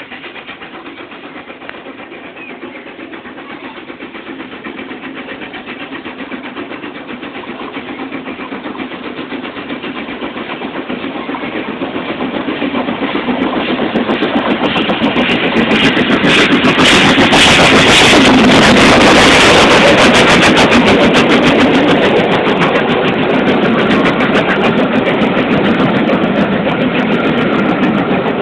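Southern Railway N15 King Arthur class 4-6-0 steam locomotive 30777 Sir Lamiel working hard up a gradient, its exhaust growing steadily louder as it approaches, and loudest about two-thirds of the way through as the engine passes. The sound overloads the phone's microphone at its peak, and the carriages rumble past near the end.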